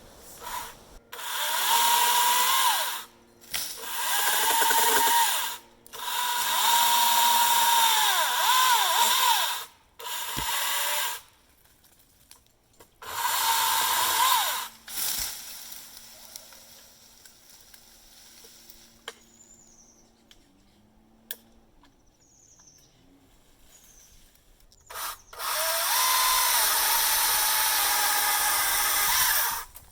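Husqvarna T535i XP battery top-handle chainsaw cutting wood in repeated bursts of a few seconds, its electric motor's whine dipping and wavering as the chain bites. A quiet stretch past the middle holds a few faint chirps, and a final long cut comes near the end.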